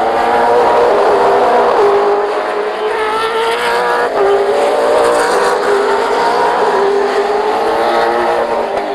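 V8 Supercar racing engines running hard at high revs. The engine note drops in steps twice, about two and four seconds in.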